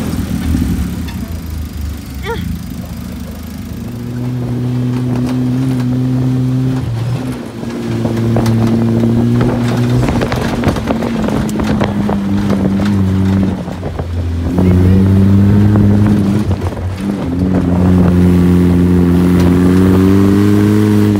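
A motor vehicle's engine running, its pitch holding for a few seconds at a time and then shifting.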